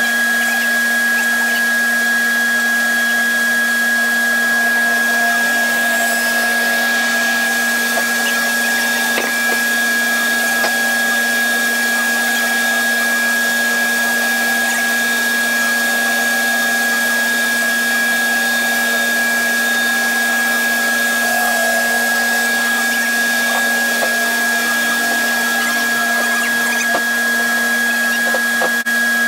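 A large bandsaw and its dust collection running steadily with no change in pitch or load: a constant high whine over a low hum. A few faint knocks come from wood being handled on the table.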